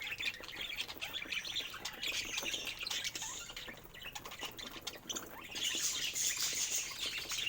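Budgerigars chirping and chattering continuously, with many quick small clicks of seed being cracked as they eat. The chatter eases off briefly around the middle, then picks up again.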